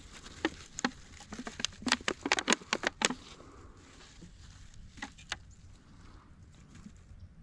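A quick run of sharp taps and clicks, about a dozen in under three seconds, then two more about two seconds later.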